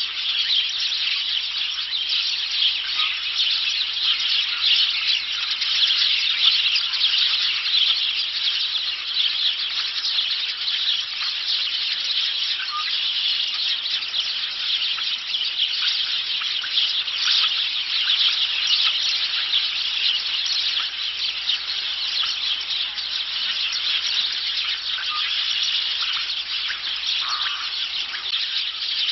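A dense, continuous chorus of high-pitched chirping and shrilling from many small creatures, with a few lower single chirps standing out now and then.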